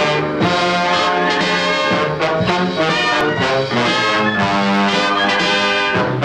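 Instrumental introduction of a recorded Spanish-style song: a brass section of trumpets and trombones playing held melodic notes over an orchestra, with no singing yet.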